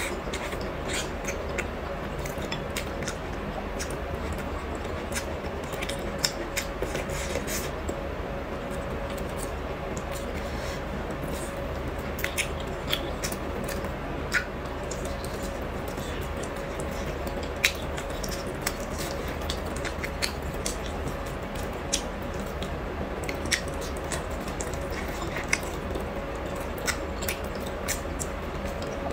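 Close-up eating sounds from braised pork ribs and rice: wet chewing with scattered sharp clicks and taps from the mouth and wooden chopsticks against a porcelain bowl, over a steady hum.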